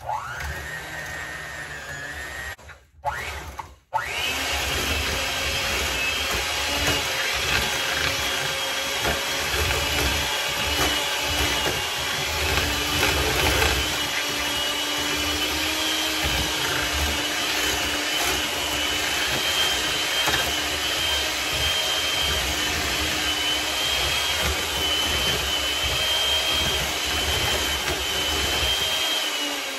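Electric hand mixer running, its beaters whipping chilled, hardened cream into a body butter. The motor whines up as it starts, cuts out briefly twice about three seconds in, then runs steadily.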